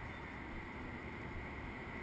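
Steady outdoor background noise: a low, even rumble with no distinct events.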